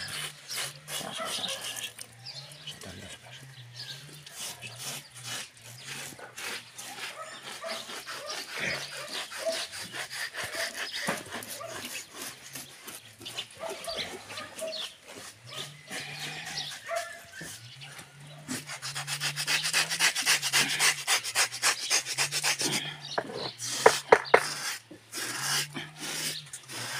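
Knife blade scraping the singed, wetted skin of a slaughtered pig in many quick strokes, the scraping busiest and loudest about two-thirds of the way through, with a couple of sharp knocks near the end.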